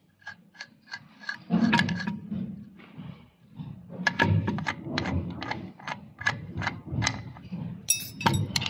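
Irregular metallic clicks and taps, a few a second, some with a short ring, from hand tools and parts of a six-cylinder inline diesel injection pump being unscrewed and handled, with a few heavier knocks among them.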